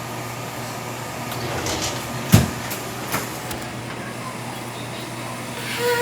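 A steady low hum with one sharp knock about two and a half seconds in, followed by a few lighter clicks, the sounds of kitchen things being handled and set down. A brief tone sounds right at the end.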